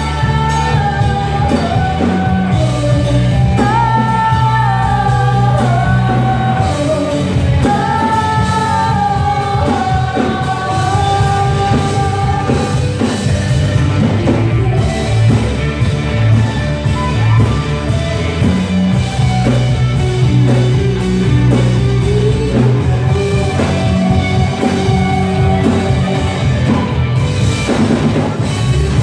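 Live rock band playing: a woman's lead vocal over electric guitars, bass guitar and drums. The singing is clearest in the first half.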